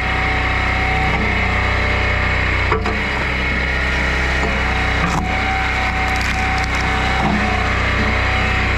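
Firewood splitting on a tractor-powered log splitter: the engine runs steadily with a whine that drops out about a second in and returns near the end, while the wood cracks and splinters, with sharp snaps about three seconds in and again about five seconds in.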